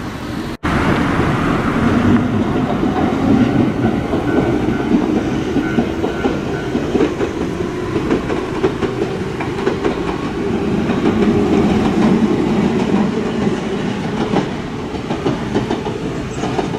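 Electric commuter train passing close by, its wheels rumbling steadily on the rails with a light clickety-clack over the rail joints. A faint high whine sits over the rumble for a few seconds near the start. The sound briefly drops out under a second in.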